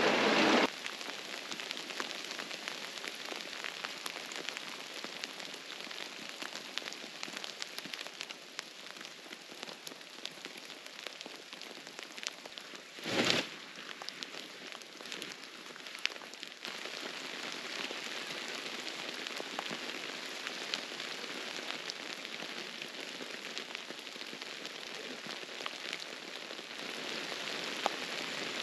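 Steady rain falling, with many small raindrop ticks. A short, louder rustling burst about halfway through.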